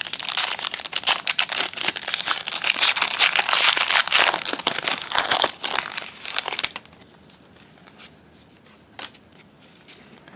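Foil wrapper of a 2016 Panini Rookies and Stars football card pack crinkling and tearing as it is ripped open by hand, for about seven seconds. Then much quieter, with a few light clicks.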